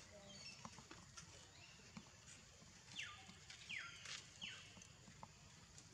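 Faint high chirping animal calls, a few short calls each falling in pitch, the clearest two about three and almost four seconds in, with light clicks and rustling between them.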